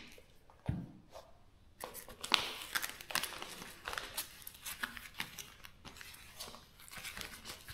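Leather boxing gloves being handled and their velcro wrist straps pressed shut: a string of short, irregular rustles, scrapes and crackles, with a soft thump about a second in.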